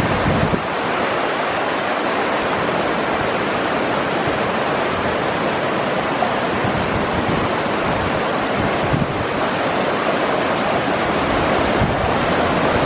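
Steady, loud rushing noise of heavy rain and wind, with gusts buffeting the microphone in low rumbles.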